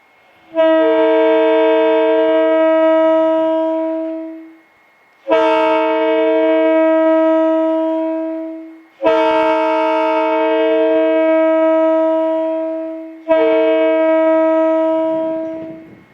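Leslie RS-2MEX railroad air horn blown in four long blasts with short gaps between them. It sounds a steady chord, and one of its higher notes drops out partway through each blast.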